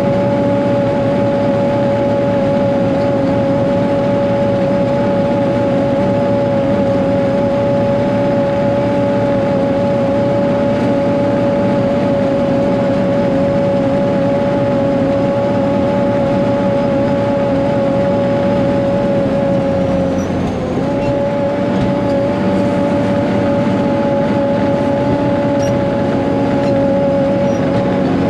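Caterpillar 140G motor grader's six-cylinder diesel engine running steadily under load as the grader travels, with a steady whine over the engine rumble. About two-thirds of the way through the pitch and level dip briefly, then recover.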